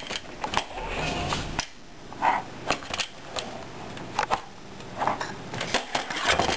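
Hard plastic toys knocking and clicking against a high-chair tray as a baby handles them: a string of irregular sharp taps.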